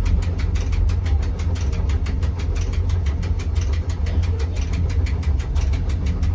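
Rigi mountain railway train running uphill: a steady low rumble of its drive with a fast, even clicking over it.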